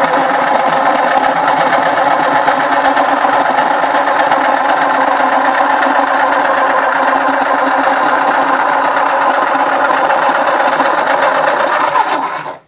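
Boston Model 18 electric pencil sharpener running with its newly replaced gear, its motor whirring steadily while the cutter grinds a pencil down to a point. It stops abruptly near the end.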